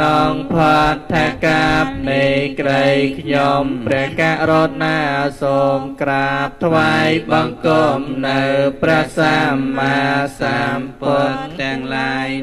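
Cambodian Buddhist monk chanting in Pali into a microphone: a steady, sing-song recitation on a few pitches, in short phrases with brief breaks between them.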